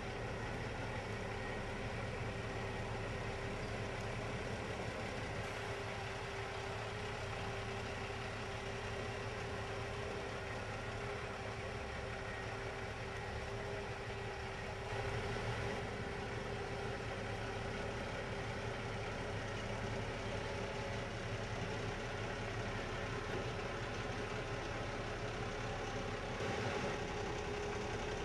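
Tractor-trailer truck's diesel engine running steadily as the rig creeps forward at low speed, with a steady hum throughout. It grows slightly louder about halfway through.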